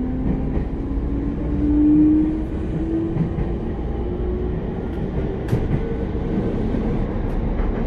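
Sotetsu 10000 series train's Mitsubishi IGBT-VVVF inverter and traction motors, heard from inside the car as it accelerates away from a station. A whine climbs slowly in pitch over the steady rumble of wheels on rail, swelling about two seconds in. This is the inverter sound nicknamed the 'ghost inverter'. A single sharp click comes about five seconds in.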